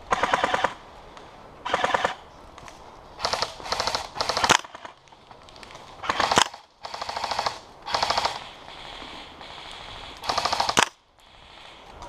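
Airsoft gun fired close by in short full-automatic bursts, about nine of them, each a rapid string of shots lasting under a second, with pauses of a second or two between some bursts.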